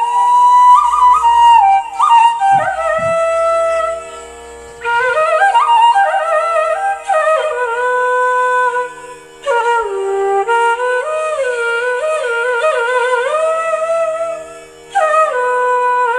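Background music: a solo bamboo flute playing a slow, ornamented melody with gliding notes in the style of Carnatic music, in phrases broken by short pauses.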